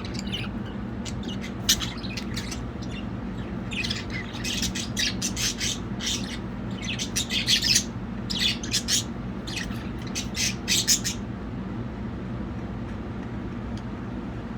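Budgerigars chirping and squawking in quick, scattered calls that grow busiest in the middle and stop about three-quarters of the way through, over a steady low hum.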